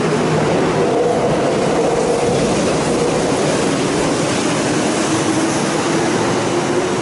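Kintetsu electric train running out along the station platform: a steady loud rumble of wheels on rail with a humming motor tone that drifts slowly in pitch.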